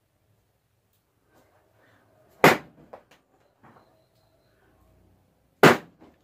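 Two small balloons popping about three seconds apart, each a single sharp bang followed by a few faint clicks.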